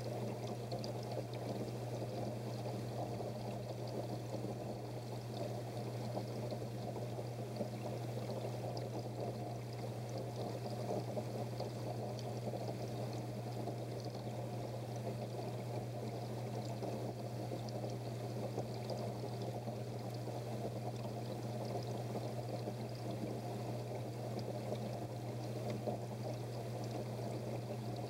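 Water pouring and trickling steadily into a fish tank, with a steady low hum underneath.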